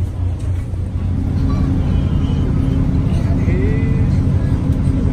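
High-speed passenger ferry's engines running with a steady low drone, heard inside the cabin. The drone steps up about a second in.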